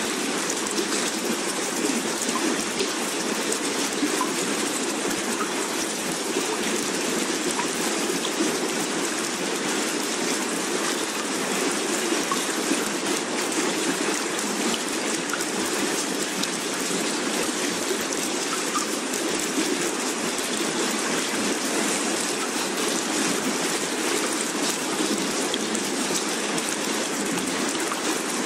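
Steady water ambience: an even, unbroken hiss of rain-like or running-water noise that does not change.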